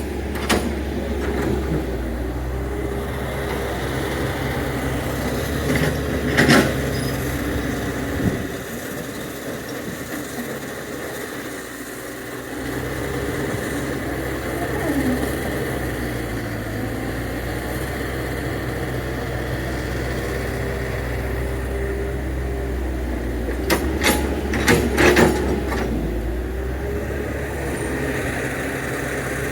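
Excavator engine running steadily with a held mechanical tone; its low hum drops away for a few seconds near the middle. Sharp clanks come about six seconds in and in a quick cluster near the end.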